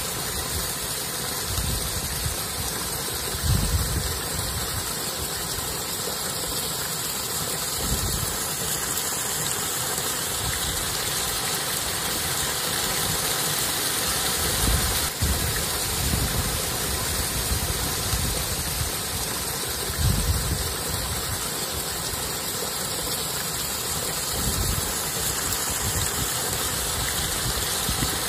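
Shallow stream running over rocks, a steady rushing of water, with wind buffeting the microphone in low rumbles every few seconds.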